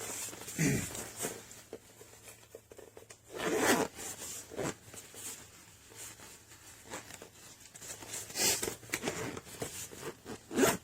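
Zipper on the tire inflator's soft carry bag being pulled closed in a few separate pulls, with rustling as the bag and packed hose are handled.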